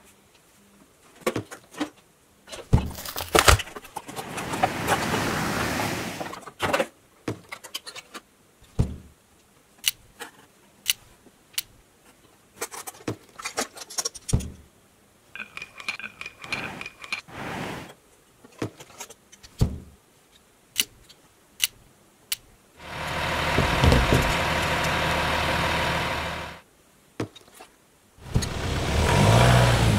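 Small plastic toy vehicles and their cardboard packaging being handled and set down: scattered clicks, knocks and rattles. Several stretches of steady noise lasting a few seconds break in, the longest about two thirds of the way through.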